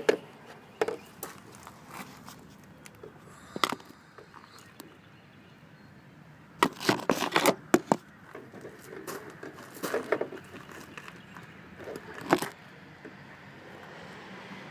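Plastic three-prong wiring plug and connector of an LED mirror light being handled and pushed together: scattered small clicks and rattles, busiest around the middle and again near the end, as the plug is worked at because it will not click into place.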